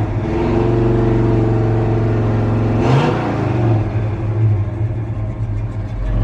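1963 Chevy C30 pickup's engine running through Flowmaster mufflers while driving, with the engine note rising and falling and a short burst of noise about three seconds in. There is no sign of the intermittent clunk the owner suspected might be a rod knock.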